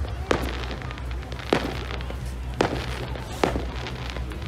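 Aerial fireworks bursting overhead: four sharp bangs at irregular intervals, roughly one a second.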